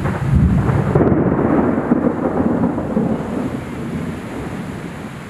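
Rolling thunder from a developing storm: a deep rumble, loudest in the first few seconds, that fades toward the end.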